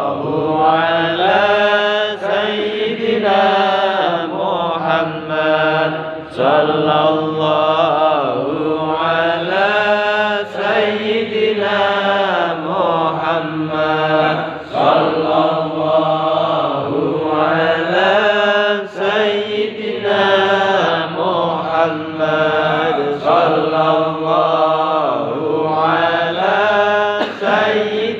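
Men chanting sholawat, Islamic devotional praise of the Prophet, as a continuous melodic chant that rises and falls in phrases of about two seconds each.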